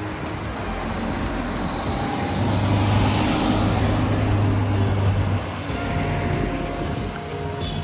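Road traffic noise, with a motor vehicle passing close by: its engine hum and tyre hiss swell from about two and a half seconds in and drop away at about five and a half seconds.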